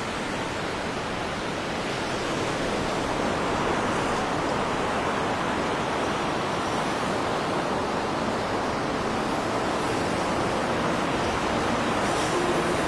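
Sea surf washing on the shore: a steady, even rush of noise with no distinct crashes.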